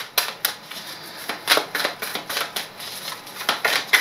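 A deck of oracle cards shuffled and handled by hand: cards slapping and sliding against one another in a run of quick, irregular clicks.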